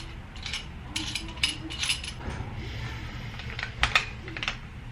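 Light metallic clicks and clinks at an irregular pace, a few a second, from bike parts and a tool being handled while a bolt is loosened.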